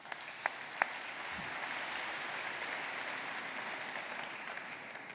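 Audience applauding: a few scattered claps at first, swelling into steady applause that fades away near the end.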